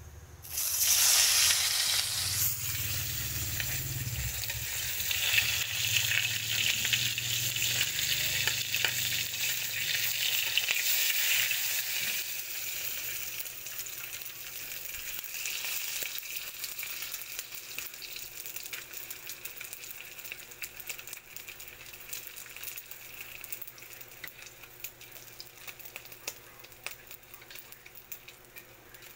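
Dried fish dropped into hot oil in a wok: a sudden loud sizzle about half a second in, then steady frying with crackles and pops that slowly dies down.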